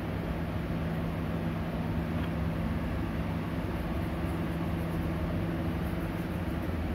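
Domestic cat purring close to the microphone while being scratched on the head, a steady low rumble that does not break.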